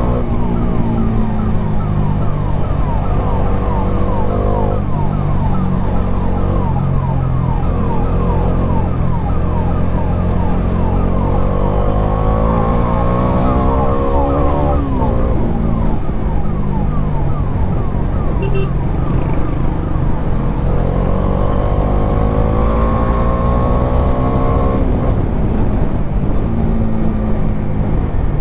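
Bajaj Dominar 400's single-cylinder engine under way, its pitch climbing and dropping three times as it accelerates and shifts up. An ambulance siren's rapid yelp sounds alongside, mostly in the first half.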